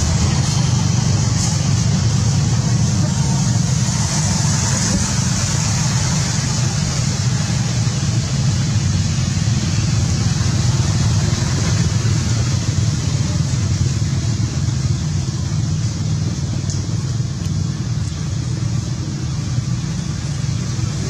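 A steady low rumble with a constant high hiss above it, unchanging throughout.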